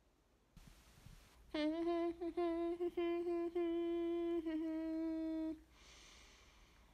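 A young woman humming one held note with lips closed, broken by a few short catches, from about a second and a half in until it stops near the end.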